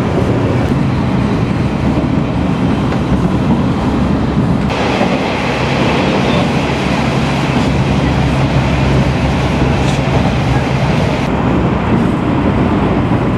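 Kiha 32 diesel railcar running along the line, heard from inside the passenger cabin: a steady engine drone under rail and running noise. The sound shifts abruptly about a third of the way in and again near the end.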